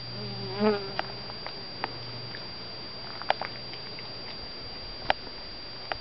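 A honeybee buzzing briefly close by, swelling and fading out about a second in. A few sharp clicks follow, over a steady faint high whine.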